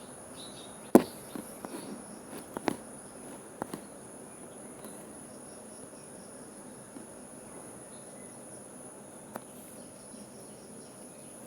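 Steady high-pitched chirring of crickets, with a few scattered sharp clicks and knocks; the loudest click comes about a second in.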